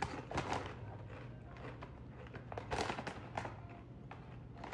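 Kettle-cooked potato chips being bitten and chewed: irregular crisp crunches, the loudest about half a second in and again near three seconds.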